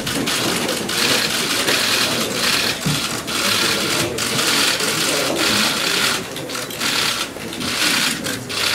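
Many camera shutters firing in rapid bursts, overlapping into a dense clatter of clicks, with a few brief lulls in the last few seconds.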